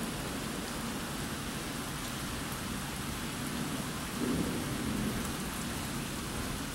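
Steady rain falling during a thunderstorm, with a low roll of thunder about four seconds in that lasts about a second.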